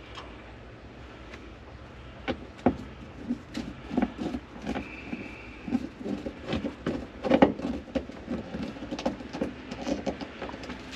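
Irregular knocks and clicks of tools and seat-belt hardware being handled inside a car's interior while a binding screw is worked in. A brief squeak comes about halfway through.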